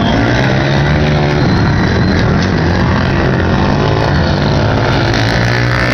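Several racing quads (250–400cc ATVs) running hard on a dirt flat track, their engine notes rising and falling in pitch and overlapping as they rev through the corners and straights.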